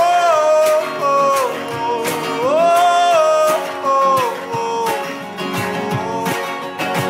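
Instrumental break: an acoustic guitar strummed in a steady rhythm under a trumpet melody of held notes that slide from one pitch to the next.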